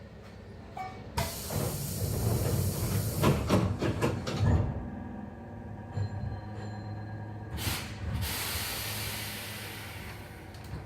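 Hankyu 7300-series electric train pulling out of a station: a burst of compressed-air hiss from the train's pneumatics starts about a second in, with a few clunks. Another air hiss comes near the end. Underneath, the field-chopper-controlled Toyo traction motors and wheels run with a soft, brushing sound that is unusual for this series.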